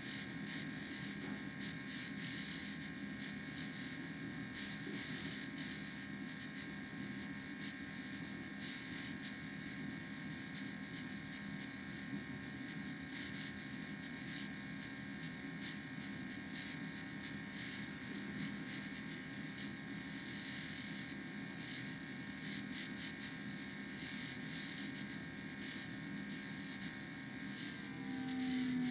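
Steady mechanical whir with several constant hum tones, unchanging throughout, and a short pitched sound near the end.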